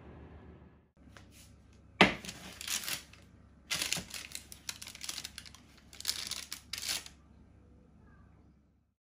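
Baking paper crinkling and rustling in three bursts. The first opens with a sharp knock about two seconds in.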